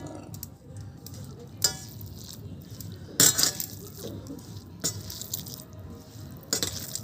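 Eating at a plate of rice and fish: four sharp clinks on the plate, spread a second or more apart, a couple of them ringing briefly, over faint background music.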